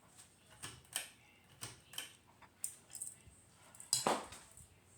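A series of sharp clicks and light rattles, about two a second, the loudest about four seconds in: a ceiling fan's pull-chain speed switch being worked from off toward high.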